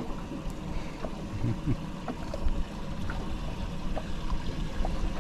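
Water lapping and trickling around a small fishing boat, over a steady low rumble.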